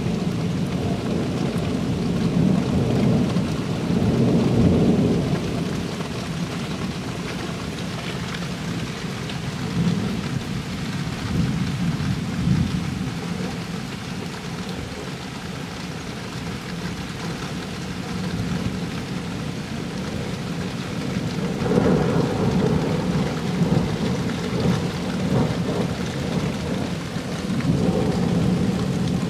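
Thunderstorm: thunder rumbling in long rolls that swell and fade, loudest near the start and again about two-thirds of the way through, over the steady hiss of heavy rain.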